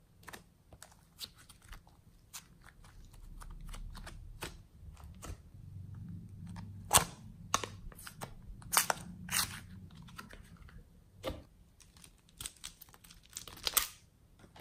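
Soft modelling clay squeezed and pulled out of plastic moulds by hand, with scattered crackles and clicks and a few sharper cracks, the loudest about halfway through and near the end.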